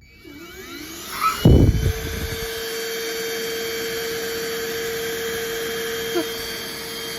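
Deerma cordless stick vacuum switched on: its motor spins up with rising whines over the first second and a half, there is a thump, and then it runs with a steady whine and rush of air.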